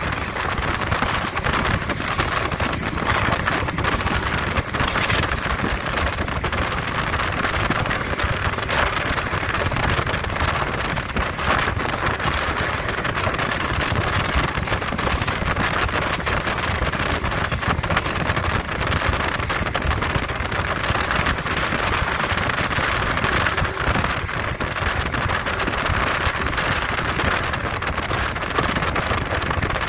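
Steady rush of wind through the open window of a moving JR West 115 series electric train, over the train's low running rumble.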